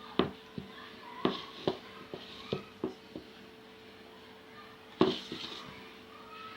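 Hands pressing the top layer of shredded kunafa dough down into a baking tray. Short light taps and clicks come every half second or so, with a louder knock about five seconds in, over a steady hum.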